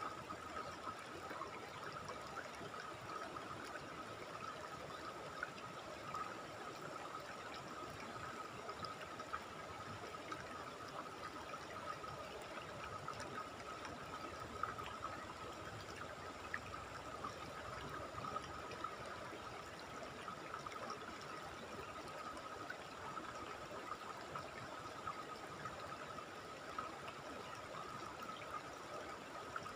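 Steady rush of a river flowing over rocks and small rapids.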